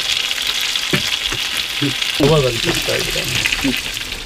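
Sausages sizzling in a frying pan on a gas stove: a steady crackling hiss.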